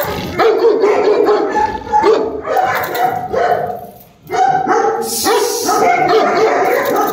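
Large dogs barking in a loud, continuous run of pitched barks, with a short break about four seconds in.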